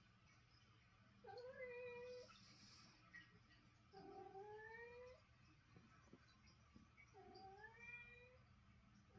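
Domestic cat meowing three times, faintly, each meow about a second long and rising in pitch.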